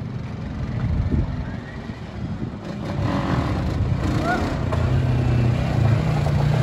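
Four-wheeler ATV engine running as the quad drives in toward the listener, its low steady hum growing louder through the second half.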